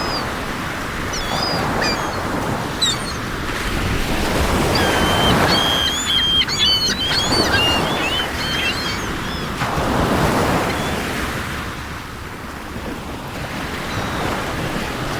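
Waves washing onto a lakeshore, swelling and easing every few seconds, with wind. Small birds chirp in quick bursts through the first half.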